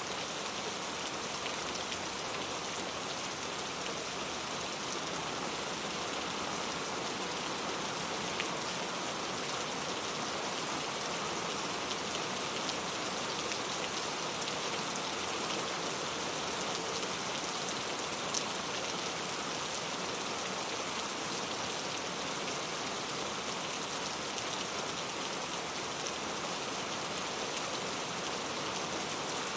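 Steady rain falling, a dense even hiss of drops on surfaces with a few individual drop ticks standing out.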